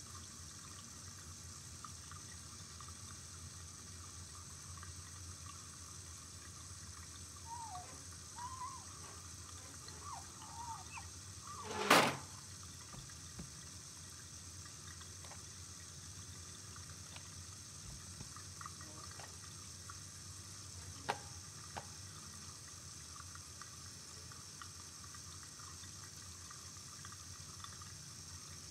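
Water running from a bathroom tap, a faint steady hiss. About twelve seconds in a single sharp knock stands out, just after a few short squeaky sounds.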